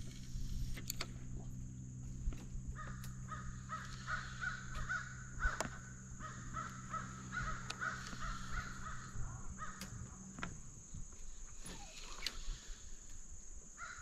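Crows cawing repeatedly in a long run of short calls, over a low steady hum that stops about ten and a half seconds in.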